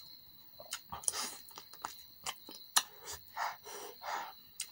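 Close-miked eating sounds from chewing spicy chicken by hand: scattered wet clicks and smacks of mouth and fingers, with a couple of short breaths near the end.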